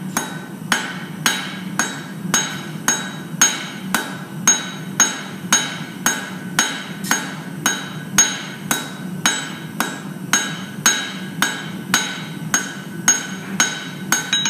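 A hand hammer strikes red-hot steel bar stock on an anvil in a steady rhythm of about two blows a second, each blow with a bright metallic anvil ring. These are half-face blows drawing out the square taper of a forged bamboo leaf.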